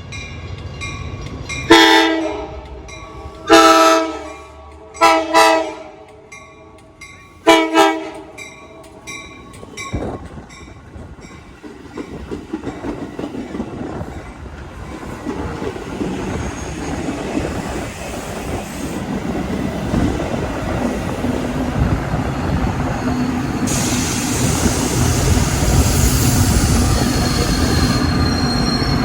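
Metra commuter train's locomotive horn sounding a salute: four loud chord blasts in the first eight seconds. Then the train's rumble and wheels clacking over rail joints build steadily, with a thin wheel squeal near the end.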